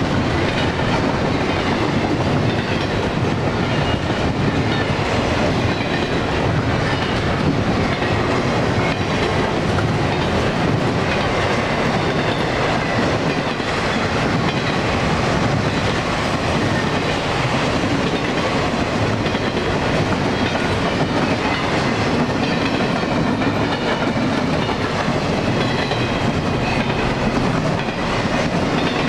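Double-stack intermodal train's well cars rolling past close by: a steady, loud rumble of steel wheels on the rails that keeps up without a break.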